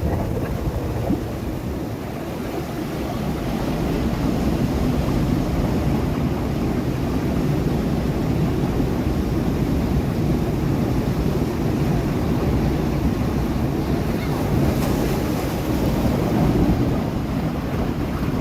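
Sea waves breaking and washing over rocks: a continuous rushing surf with a deep rumble, swelling slightly a few seconds in.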